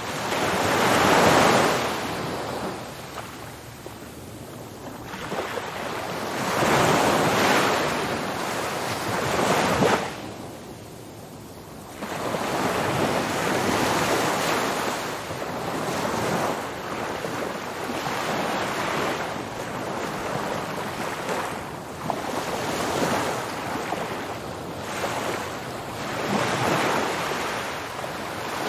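Ocean surf breaking on a beach: repeated swells of rushing, hissing water that rise and fall, with a brief lull about ten seconds in.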